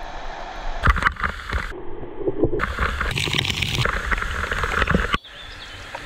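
Waterfall water pouring and splashing onto rock close to the camera. The sound changes abruptly several times, with a few sharp splashes about a second in, and drops sharply just after five seconds in.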